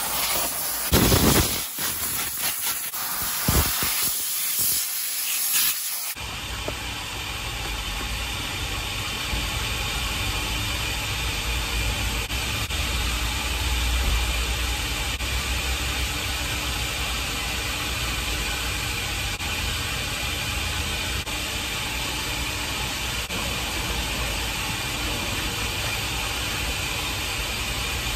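Car-wash air blower nozzle hissing in several sharp blasts over the floor carpet. About six seconds in, this gives way to a steady rushing noise with a low rumble.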